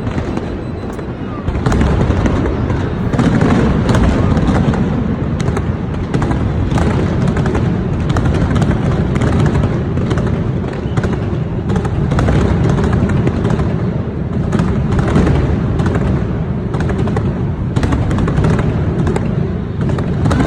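Fireworks display: a dense, continuous barrage of bangs and crackles over a steady low rumble.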